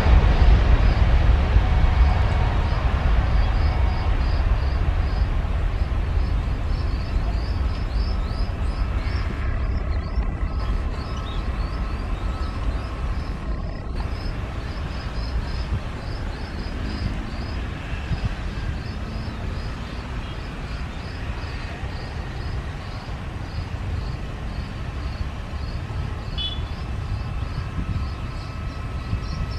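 Boeing 737 jet engines at takeoff power: a deep, steady rumble that fades gradually as the airliner rolls away down the runway. A fast, high chirping runs through it.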